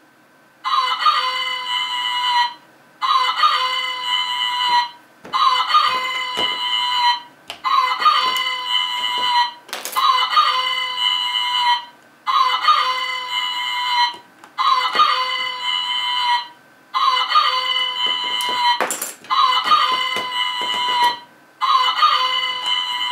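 Novelty farm alarm clock sounding its alarm as a recorded rooster crow, repeated over and over: about ten crows of roughly two seconds each with short gaps between. A few sharp clicks and knocks fall between and over the crows.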